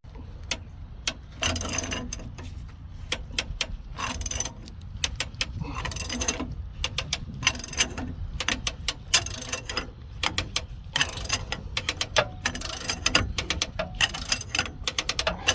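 Hand ratchet wrench clicking in repeated strokes as it cranks a torque multiplier, straining to break loose a very tight nut on a hydraulic cylinder rod.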